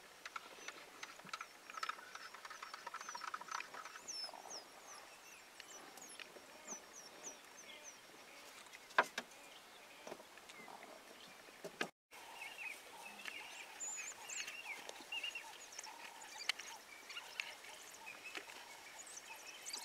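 Quiet outdoor ambience full of short, high chirping calls, with a sharp knock about nine seconds in. The sound drops out completely for a moment about twelve seconds in.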